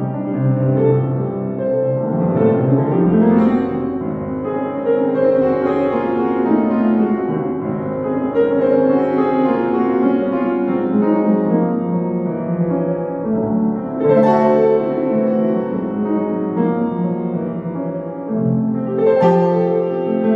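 Solo classical piece played on a Kawai upright piano, with notes and chords sounding without a break; heavier, brighter chords are struck about 14 and 19 seconds in.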